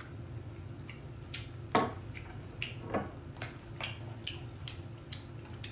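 Eating noises: about a dozen light, irregular clicks and taps of utensils and food, the loudest about two seconds in, over a low steady hum.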